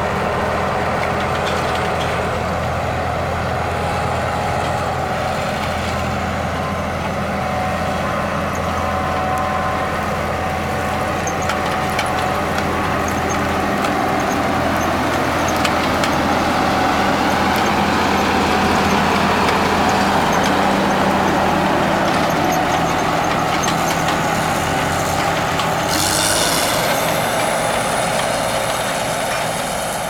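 John Deere 9560 WTS combine harvester running, a steady engine drone with machinery hum. About 26 seconds in the low drone drops away and a higher sweeping sound takes over.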